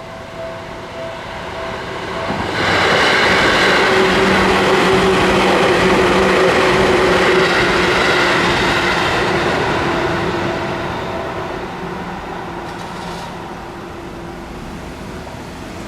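Seibu Kokubunji Line electric train passing over a level crossing. It comes in suddenly about two and a half seconds in, stays loud for several seconds, then fades away. Before and after it, the crossing's warning bell rings as a steady repeated tone.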